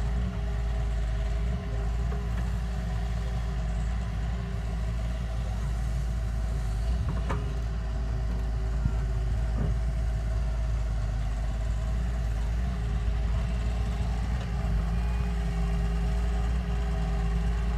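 Heavy equipment's engine running steadily with a low rumble, with a couple of brief knocks about midway.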